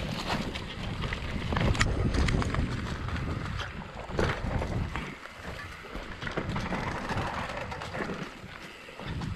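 Wind buffeting the microphone over a rumble, with many small clattering knocks, as of a mountain bike riding over a rough trail.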